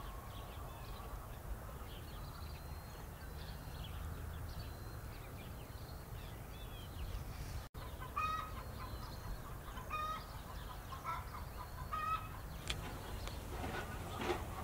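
Chickens clucking faintly: four short calls in the second half. Before them there are faint high chirps, and a few knocks come near the end.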